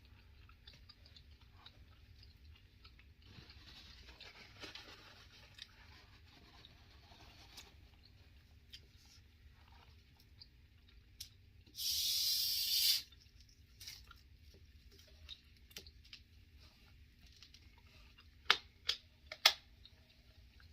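Faint chewing and mouth sounds of someone eating olives, with scattered small clicks. About twelve seconds in there is a loud one-second burst of hiss, and near the end three sharp clicks in quick succession.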